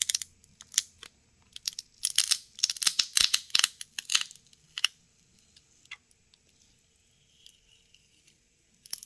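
Adhesive strip crackling and tearing as it is pulled out from under a phone battery, in a flurry of sharp crackles between about two and five seconds in.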